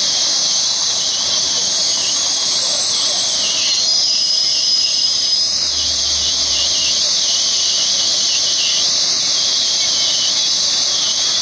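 Steady high-pitched hiss that holds level throughout.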